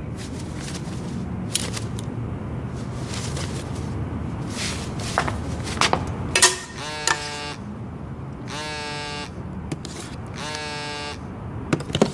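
Hair dryer running steadily under brief rustling strokes, then a mobile phone's incoming-call tone sounding three times about two seconds apart.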